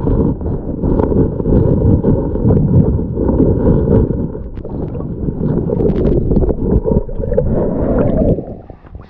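Muffled underwater rumble of streambed water being churned by a hand digging in the gravel, heard through a submerged camera, with small clicks of pebbles knocking together. The rumble drops away sharply near the end.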